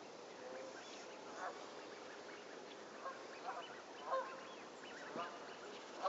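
Canada geese honking: a handful of short calls from a flock, scattered through, some close together.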